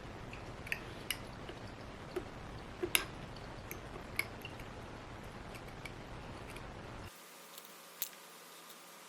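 Small sharp clicks and scrapes of a metal repair knife and tweezers working cracked camera lens glass off the back of an iPhone, scattered and irregular, the loudest about three seconds in. Under them a steady low hiss drops away abruptly near the end.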